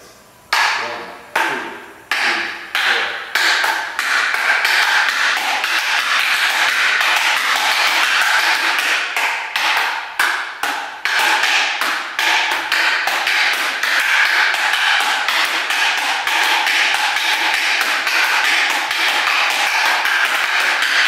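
Fighting sticks clacking against each other in a kung fu stick drill, echoing off concrete. The first few strikes come singly, a little under a second apart, then about four seconds in they become a fast, continuous run of clacks.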